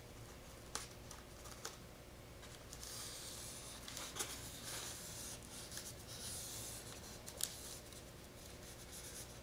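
Faint rubbing of foam mold pieces being handled and slid apart, with a few light knocks.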